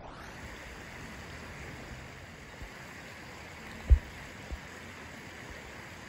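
Steady rush of flowing river water, with a few short low thumps, the loudest about four seconds in.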